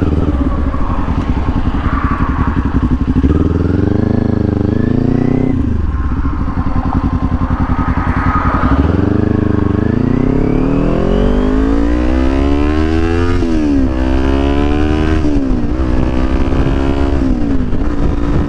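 Motorcycle engine accelerating hard through the gears: its pitch climbs steadily, then drops sharply at each upshift, once about five seconds in and then in quicker succession near the end.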